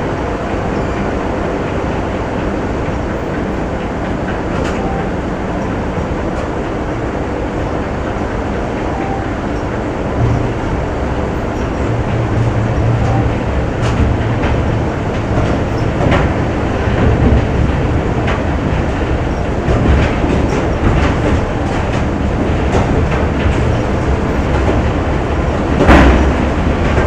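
Factory machinery ambience: a dense, steady mechanical rumble with a faint hum for the first third. The rumble grows heavier about ten seconds in, with scattered knocks and one loud knock near the end.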